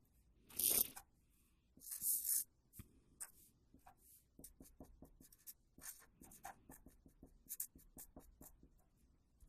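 A pen drawing on paper: a few longer scratchy strokes in the first couple of seconds, then many short quick strokes and taps.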